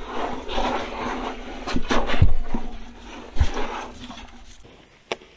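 A person breathing hard amid rustling and scraping of clothing, with a few dull knocks and one sharp click near the end.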